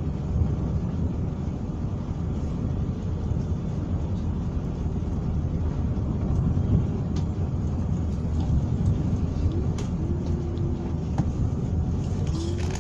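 Steady low rumble of a passenger train running, heard inside the coach, with a few light clicks and two short faint tones near the end.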